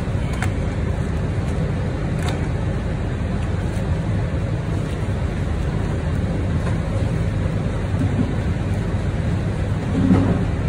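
Steady low machine hum with an even rushing noise over it, unchanging throughout, and a soft knock about ten seconds in.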